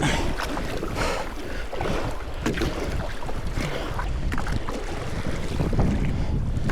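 Kayak being paddled through choppy water: splashes recur about once a second with the paddle strokes, over wind rumbling on the microphone.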